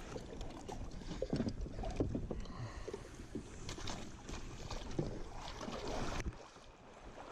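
Kayak being paddled, with irregular splashes and knocks against the hull and wind rumbling on the microphone; the sound cuts off abruptly about six seconds in.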